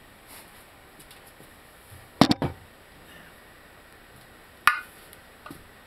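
Sharp metallic clicks and knocks from pressing a rubber control-arm bushing into a VW Mk4 front control arm: a quick cluster of three or four about two seconds in, then a single click nearly three seconds later.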